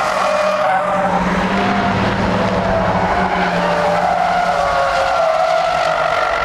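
Racing sedans' engines running hard, with tyres squealing through a corner; the squeal wavers up and down in pitch.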